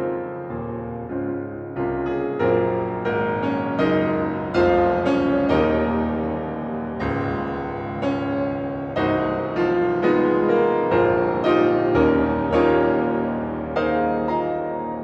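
Piano playing a flowing passage of quick struck notes over ringing sustained chords. It grows louder a couple of seconds in, then fades gradually near the end.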